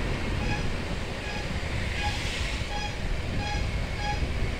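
Honda Beat automatic scooter riding along, its engine and wind rumble steady on the helmet microphone. A short electronic beep repeats about every two-thirds of a second through it.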